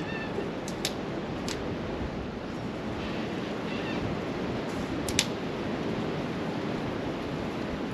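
Steady rushing of strong wind, with a few sharp clicks; the loudest is a quick double click about five seconds in.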